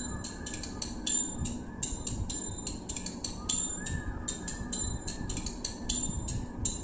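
Recorded devotional dance music playing: a quick, busy rhythm of sharp high percussion strokes with a faint melody underneath and no singing.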